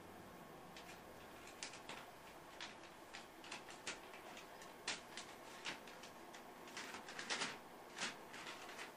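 Printer paper rustling and crinkling in irregular short bursts as a cat paws and grabs at the sheets in the output tray, with a thicker flurry of crinkling about seven seconds in.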